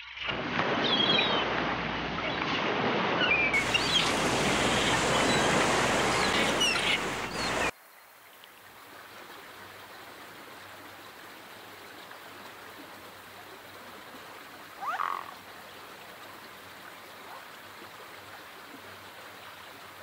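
A loud steady rushing noise with many short, high calls of gulls and ducks over it; about eight seconds in it cuts to a much quieter steady hiss, with a single brief call near the middle.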